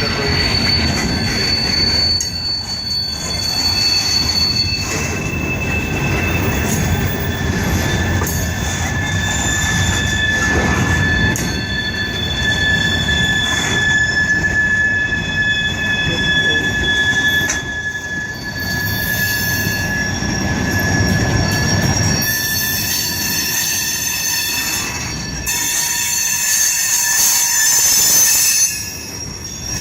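Freight train cars rolling past with a steady rumble of wheels on rail. Several high, sustained wheel squeals come and go throughout.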